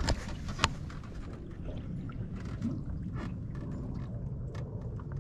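Steady low rumble of wind and lapping water around a small aluminium boat, with two sharp clicks within the first second and a few faint ticks after.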